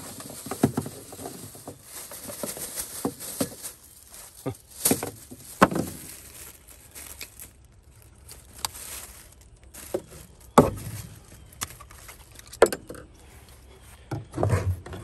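A plastic shopping bag rustling, with scattered knocks and clicks as small plastic solar stake lights are handled. The sharpest knocks come about ten seconds in and again near the end.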